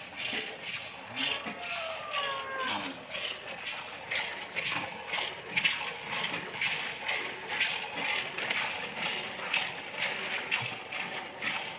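Water buffalo being milked by hand: jets of milk squirting into a metal bowl of milk in a steady rhythm, about two squirts a second.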